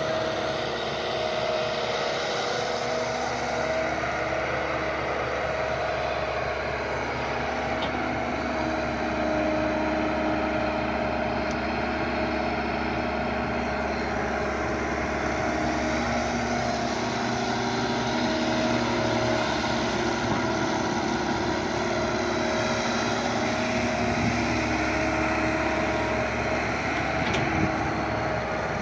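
Kobelco SK120 Mark 3 hydraulic excavator's diesel engine running steadily as it works, a continuous drone that holds a steady pitch.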